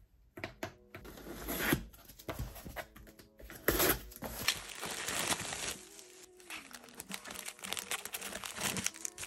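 A cardboard shipping box being opened: packing tape cut and torn, cardboard scraping and tapping, the loudest rip about halfway through. Then clear plastic packaging sleeves crinkle as they are handled, with faint background music.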